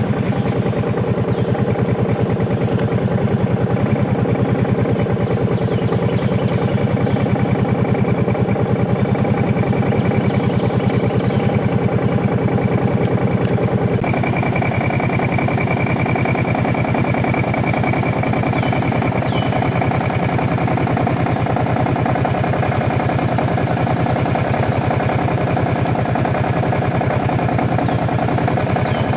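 Boat motor running steadily under way, its tone shifting abruptly about halfway through.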